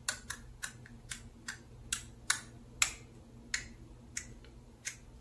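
A string of about a dozen sharp, irregular clicks and crackles, two or three a second, from a plastic soap pouch being handled and squeezed in the hand.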